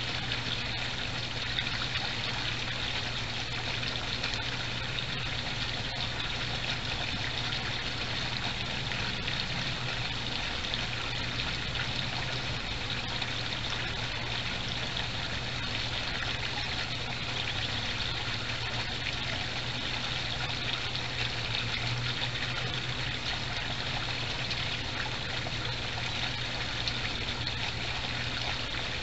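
Water trickling steadily in a backyard koi pond, an even continuous flow with a low steady hum underneath.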